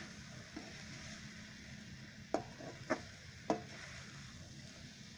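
Beef and onion masala sizzling in a wide metal pan as it is stirred with a spoon, with three sharp knocks of the spoon against the pan about half a second apart around the middle.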